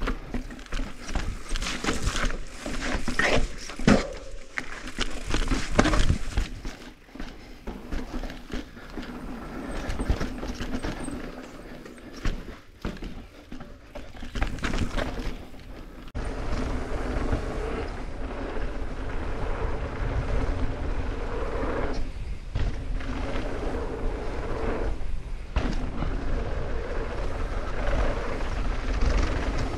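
Mountain bike descending a forest trail fast: tires and bike clattering over rocks with many sharp knocks and rattles through the first half, then a steadier rush of wind over the microphone and tire noise on smoother dirt.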